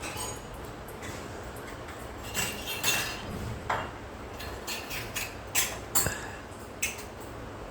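Irregular light clicks and knocks of a cockatiel's small toy ball being pushed and bumped around on a hard surface.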